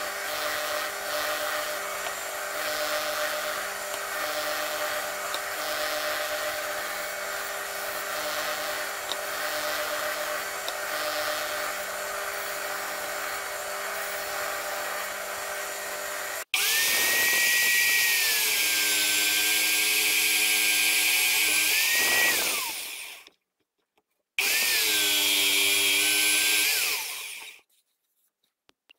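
Bench spindle sander running steadily with an even hum while the edge of a wooden cutting board is pressed against its sanding drum. About two-thirds of the way through, a louder, higher-pitched power drill takes over, boring into wood: it spins up, runs, and winds down twice with a short pause between.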